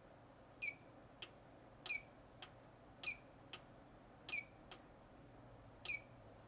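Buttons on a Yihua 948 II soldering station being pressed to step the iron's set temperature up. The station gives five short, high beeps with clicks, and fainter single clicks fall between them.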